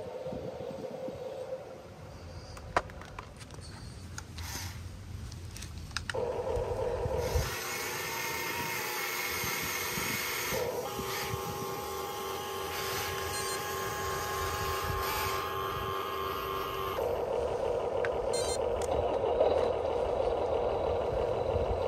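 Radio-controlled scale model machinery running: a steady electric whine that changes pitch and grows louder about six seconds in and again near the end, with a few sharp clicks.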